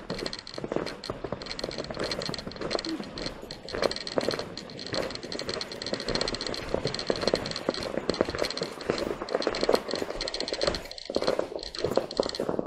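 Footsteps crunching on a gravel-covered bridge deck as several people walk, a quick, uneven run of gritty steps.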